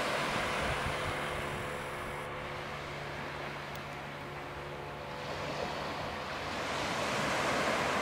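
Small waves washing onto a sandy beach, with the faint steady drone of a distant speedboat's engine under it that fades out about six seconds in.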